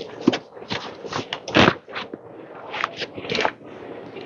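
Cardboard box being handled and opened by hand: irregular rustling, scraping and crackling of the flaps and packaging, the loudest a longer scrape about one and a half seconds in.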